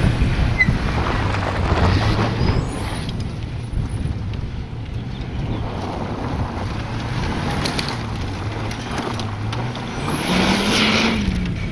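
Mitsubishi Lancer Evolution rally car's turbocharged four-cylinder engine driven hard on a gravel stage, its note wavering up and down through the corners. Near the end it revs up sharply to a higher pitch.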